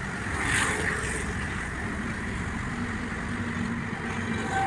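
Steady rumble of road traffic and engines, with a brief hiss about half a second in.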